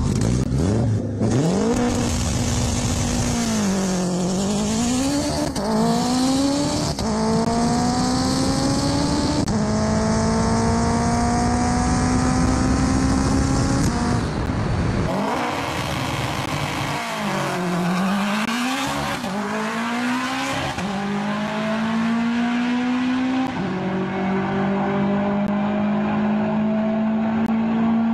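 Turbocharged Honda K20 four-cylinder in an all-wheel-drive Acura RSX making a full-throttle drag-strip run. The revs dip and recover at launch, then climb through the gears with a quick drop at each upshift. About halfway a cut restarts the run from the launch, and it climbs through the gears again.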